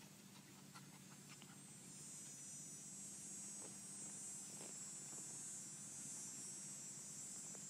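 Quiet outdoor background with a steady high-pitched buzz that grows louder about two seconds in, and a few faint light taps and clicks as a puppy pushes and mouths a plastic container on the grass.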